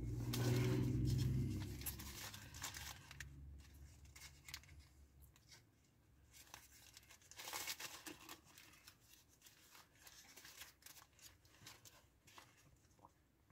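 Paper food wrapper crinkling and tearing as a fast-food wrap is handled and opened, in short scattered rustles, with a louder low rumble in the first couple of seconds.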